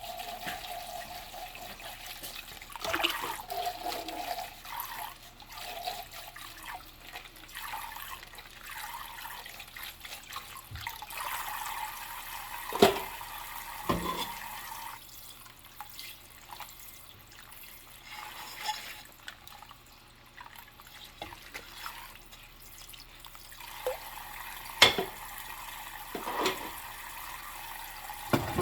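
Dishes being hand-washed under a running kitchen tap: steady running water, with short squeaks of rubber gloves on wet dishware near the start. Sharp clinks and knocks of dishes come a few times, loudest about halfway through and near the end.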